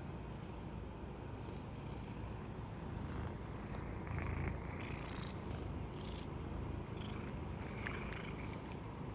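American Shorthair cat purring, a continuous low rumble that sounds like snoring.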